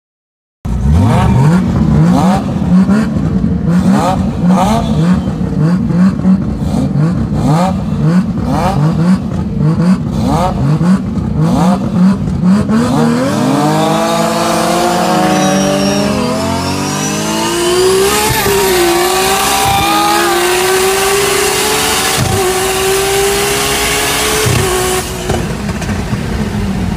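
A drag car's engine revved in quick, regular blips with sharp pops for about twelve seconds. Then the car launches hard, its revs climbing steeply through several gear changes with a high whine over the engine note.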